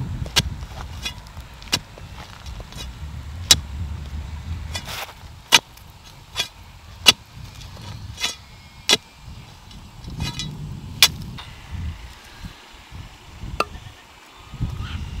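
About a dozen sharp knocks and taps at uneven intervals, over a low rumble that comes and goes.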